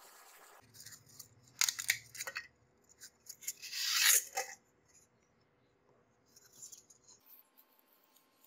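Polystyrene foam block handled and rubbed against the wire and wooden work surface: a few short scrapes, then a louder, swelling rubbing noise about four seconds in. A faint low hum starts just after the beginning and stops about seven seconds in.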